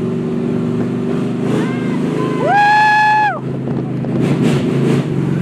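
Monster truck engine running steadily as the truck drives. About halfway through, a rider lets out one long whoop that rises, holds and falls away.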